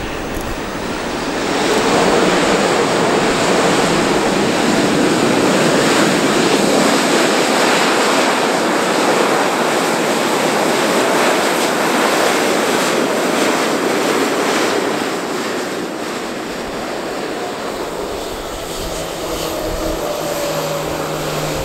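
Jet engine noise from an Airbus A340-300's four CFM56 engines as it slows on the runway after landing: the noise rises about two seconds in, holds steady, then eases off to a lower whine after about fifteen seconds, with a faint falling tone near the end.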